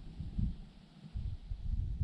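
Wind buffeting the camera microphone: an uneven, gusty low rumble that drops away briefly about a second in.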